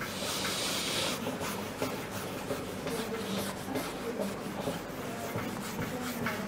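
Whiteboard eraser wiping across a whiteboard: a dry rubbing hiss in repeated strokes, the longest and loudest in the first second.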